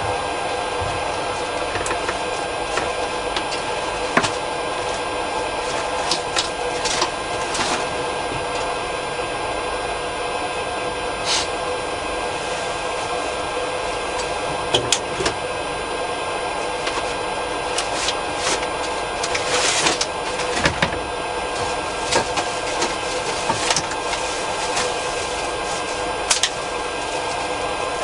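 Steady whir and hum of a powered-up Boeing 777 flight deck, its avionics cooling fans and air supply running, with short clicks and ticks scattered through it.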